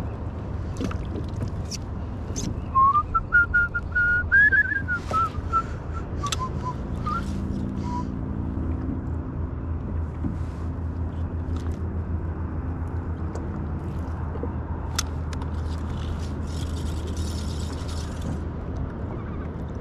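A person whistling a short wavering tune, rising then falling, for a few seconds, over a steady low rumble, with scattered light clicks.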